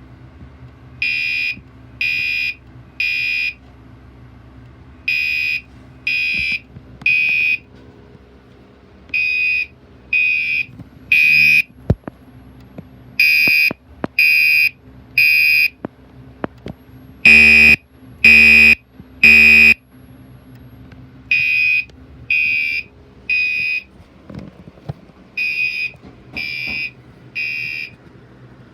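Gentex Commander 3 fire alarm horn sounding the temporal-3 evacuation pattern: three short, loud blasts, a pause, then three more, repeating about every four seconds. One group of three, about two-thirds of the way through, is louder and fuller than the rest.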